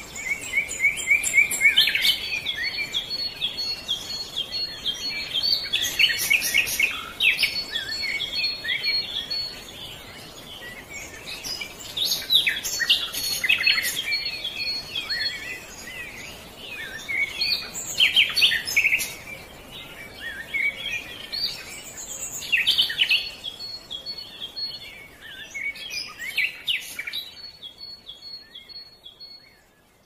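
Small birds chirping in rapid, busy bursts every few seconds, with a thin high whistled note repeated among the chirps and a few sharp clicks; it fades out near the end.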